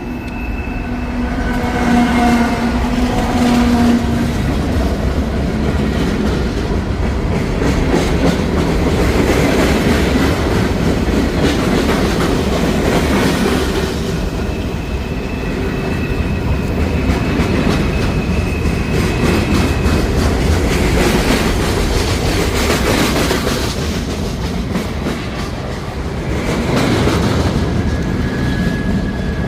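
A train passing close by, its wheels rumbling and clattering steadily on the rails. A horn chord sounds in the first few seconds, and a thin high whine, like a wheel squeal, holds for several seconds about halfway through.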